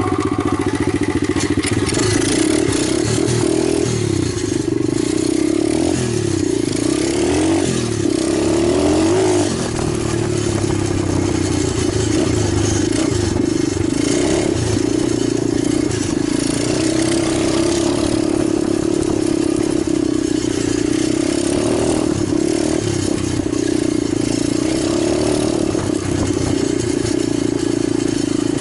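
Italjet 125cc pit bike engine running, its revs rising and falling several times about a quarter of the way in, then holding steadier.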